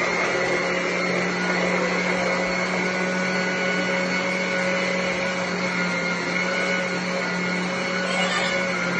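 Portable handheld bucket washing machine's small copper-wound electric motor running steadily, with a constant hum and a high whine over a churning noise.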